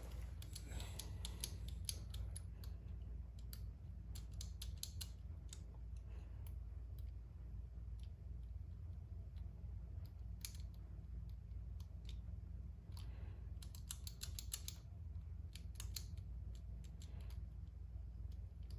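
Master Lock M175 combination padlock's number wheels clicking as they are turned position by position while the shackle is pulled to feel for play, heard as irregular clusters of small sharp clicks with pauses between them.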